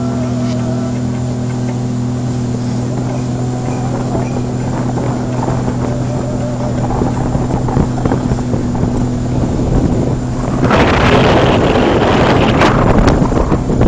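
Speedboat engine running steadily at speed, with water rushing past the hull. About ten seconds in, loud wind on the microphone and rushing spray rise over the engine.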